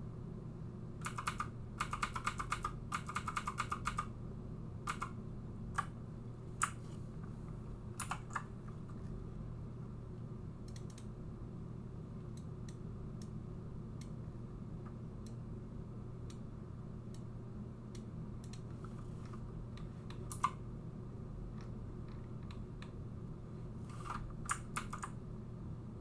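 Computer keyboard keys clicking in quick runs in the first few seconds, then scattered single clicks through the rest, over a steady low hum.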